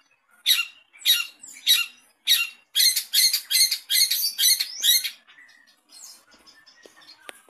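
Long-tailed shrike giving a run of harsh, high chattering calls that come faster toward the middle, then trail off into fainter scattered notes in the last couple of seconds.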